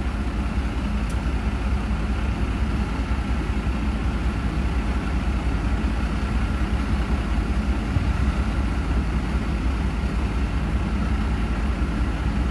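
Diesel engines of a dump truck and an asphalt paver running steadily as the truck's raised bed feeds asphalt into the paver during road repaving: a constant low engine drone.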